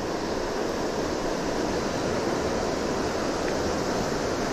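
Steady rush of a shallow, fast-flowing river running over a stony bed.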